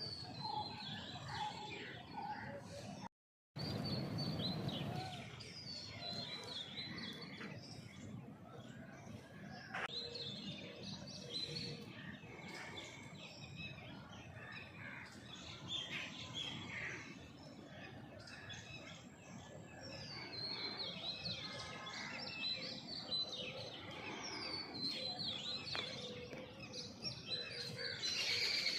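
A chorus of small birds chirping and calling over one another, with many short, quick falling whistles. The sound cuts out completely for a moment about three seconds in.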